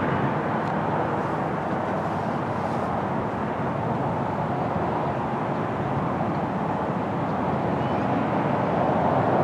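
Steady outdoor rushing noise with no distinct events, dipping a little in the middle and swelling again near the end.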